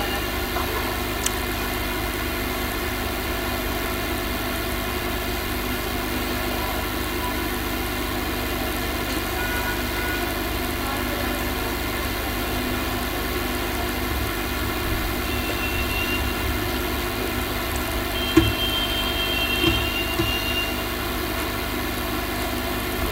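Steady mechanical drone, a low rumble with several steady hums laid over it, like a motor or fan running, broken by a few short clicks.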